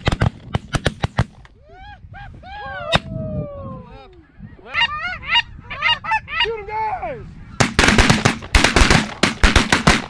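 Several shotguns fire in a rapid volley in the first second, then snow goose calls: short honks that rise and fall. Near the end comes a second, louder rapid volley of shotgun fire.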